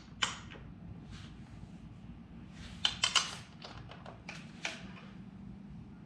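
A few sharp clicks and light taps at irregular intervals, clustered about three seconds in and again a second or so later: hand tools at work on the motorcycle's rear axle nut.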